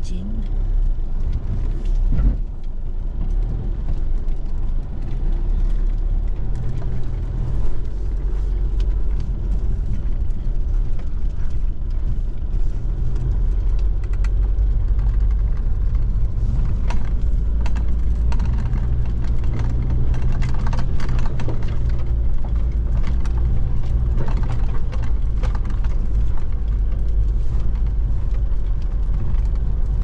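4x4 vehicle driving, with a steady low engine and road rumble and scattered knocks and rattles.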